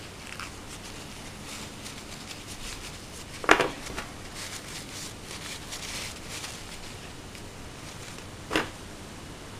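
Small airsoft pistol parts handled and set down on a wooden tabletop: two distinct knocks about five seconds apart, with light clicks and paper tissue rustling between them.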